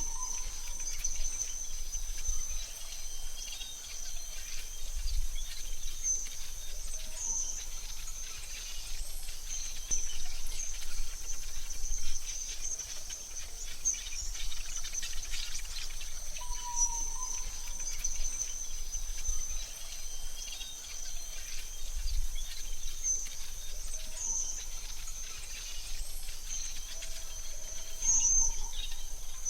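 Forest ambience: a steady high-pitched insect drone with fine crackling and a few short bird calls, about three in all, near the start, midway and near the end.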